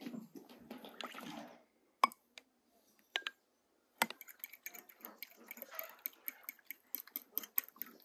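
Kitchen handling sounds of food preparation: a short wash of running or splashing water, then a few sharp clinks of dishware, one of them ringing briefly, and from about halfway a busy run of quick clicks and rustles.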